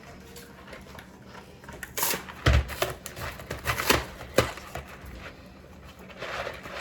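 Kitchen cookware being handled: a few sharp knocks and clatters, the loudest with a low thump a little over two seconds in, followed near the end by a rising hiss.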